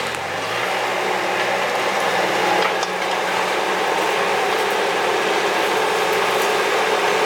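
Bobcat skid steer's diesel engine running steadily under work, with a few sharp clicks and clanks from the machine at work.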